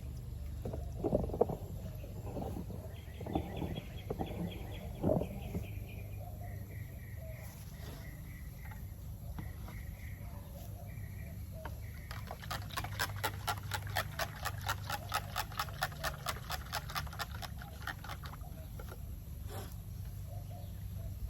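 A few sharp knocks in the first five seconds, typical of a stick striking the bucket during stirring. Then an animal calls: runs of short high notes, followed by a rhythmic chatter of about four to five calls a second lasting several seconds.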